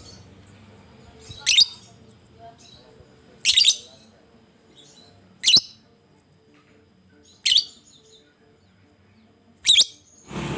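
Lovebird giving short, shrill calls, five in all, about two seconds apart.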